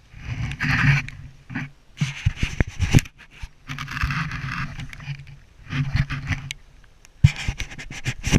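Scraping and rubbing against the microphone of a camera worn by a dog, in five or so uneven bursts with short gaps between them.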